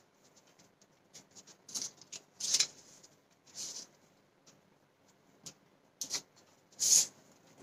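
Thin craft paper being folded and handled by hand: a scattering of short rustles and scrapes, the loudest about two and a half seconds in and again near the end.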